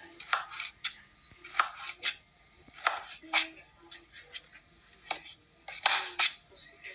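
Kitchen knife chopping zucchini into small pieces: a run of short, sharp strokes at an uneven pace, roughly one or two a second.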